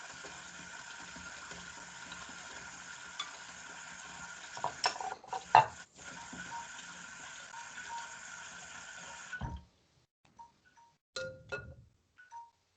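Kitchen sounds at a stove: a steady hiss with utensils and pans clattering about five seconds in. The hiss cuts off abruptly about nine and a half seconds in, leaving a few light clinks.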